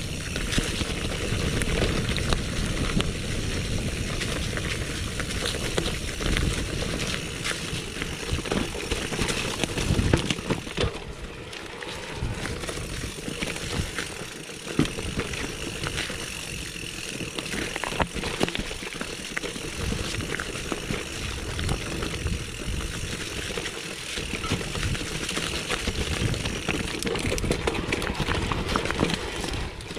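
Mountain bike riding downhill over a rough forest trail: tyres rolling over dirt, leaves and stones, with the chain and frame rattling and knocking over the bumps.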